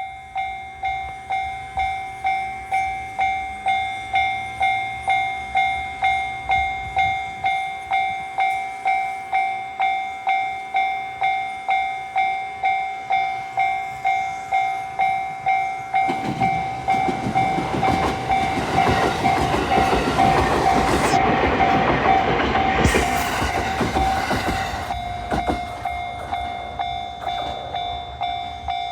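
Japanese level-crossing warning bell ringing at about two dings a second. About sixteen seconds in, electric train set C430 passes over the crossing: its rumble and wheel noise build up, peak, then die away a few seconds before the end, while the bell keeps ringing.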